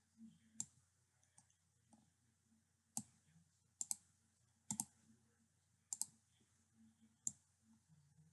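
Computer mouse clicking: a handful of short sharp clicks, several coming in quick pairs, over a faint low hum.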